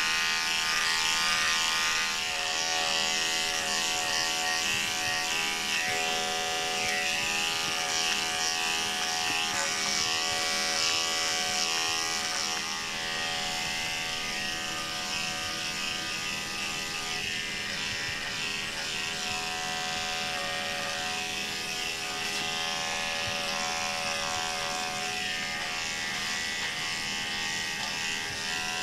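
Corded electric dog clippers running steadily with a high buzzing hum as the blade shaves a Maltese's coat down short, the tone shifting slightly as the blade moves through the hair.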